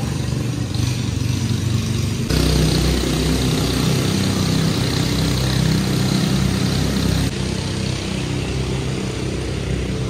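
Steady motor-vehicle engine rumble. It gets louder about two seconds in and drops back about seven seconds in.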